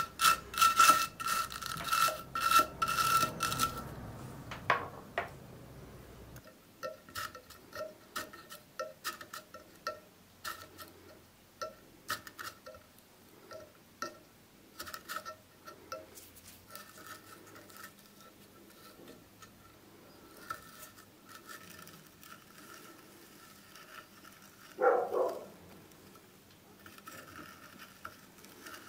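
A stiff wire brush scrubbing rust from an oily steel threaded rod and square nut in quick back-and-forth strokes, fading out after a few seconds. Then come light metallic clicks and scrapes as the square nuts are worked along the threads, with one louder scrape near the end.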